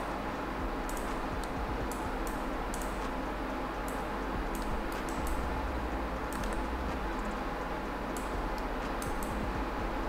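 Irregular clicks of a computer keyboard and mouse, a few a second, over a steady background hiss.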